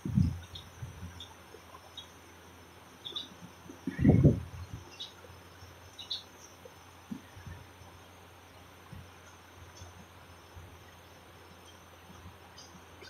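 Quiet background with a low steady hum and faint, short high chirps scattered throughout. Two dull low thumps stand out, one at the start and a louder one about four seconds in.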